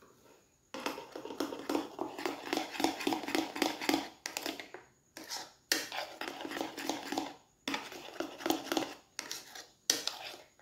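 Metal spoon stirring and scraping around a ceramic bowl, folding melted dark chocolate into whipped cream: quick runs of scrapes and clinks starting about a second in, in several spells broken by short pauses.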